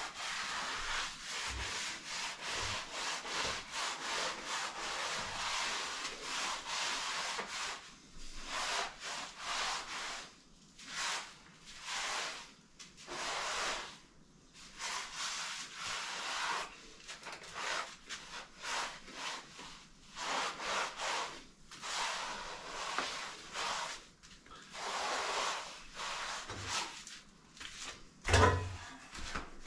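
A hand tool rubbing and scraping over fresh cement render in repeated strokes. The strokes run almost continuously at first, then come as separate strokes about a second apart. One sharp knock comes near the end.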